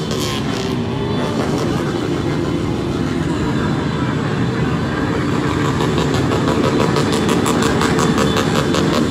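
Motorcycle engines running among a large, noisy crowd of football supporters. A fast, regular beat grows stronger from about halfway through.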